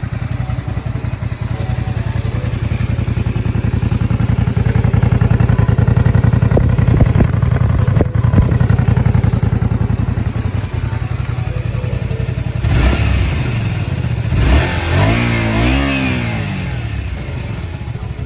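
Honda VTZ250's 250 cc V-twin running steadily through its stock muffler, which has two small holes drilled into the silencer. Near the end the engine is revved up and back down a couple of times.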